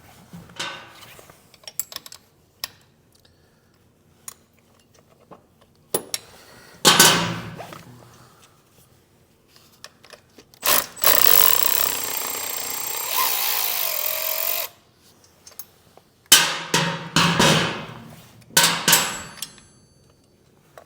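Tools working a motorcycle's shift linkage loose: a few sharp metal knocks, and a steady mechanical run of about four seconds in the middle.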